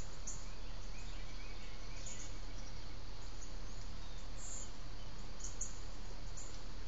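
Steady outdoor background hiss and low hum, with scattered short, high chirps and a few fainter bird notes about two seconds in.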